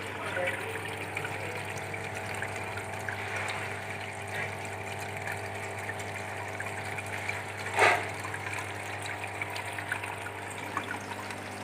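Small water fountain running: water trickling and splashing steadily over a constant low hum from its pump. A brief louder splash or knock comes about eight seconds in.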